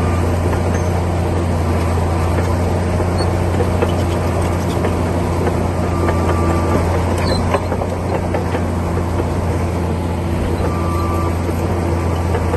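Komatsu D60P bulldozer's diesel engine running steadily with a deep hum, with scattered clicks and clanks over it. The level dips slightly about halfway through.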